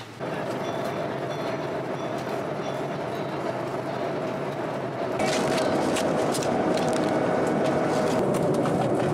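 Steady airliner cabin noise, the rumble and hiss of a jet in flight. About five seconds in it gets louder and is joined by rapid crinkling of a foil wrapper being opened by hand.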